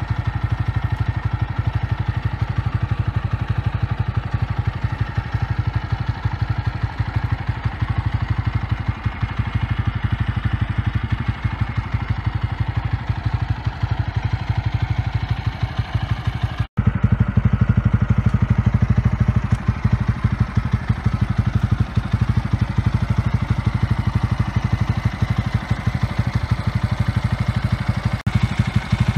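TVS Apache RTR 200's single-cylinder engine idling steadily in neutral, without revving. A short break about halfway through, after which the idle is a little louder.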